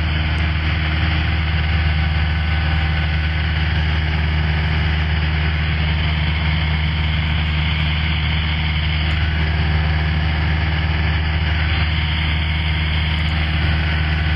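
Cessna 172 Skyhawk's piston engine and propeller droning steadily in flight, heard inside the cabin as a loud, even drone.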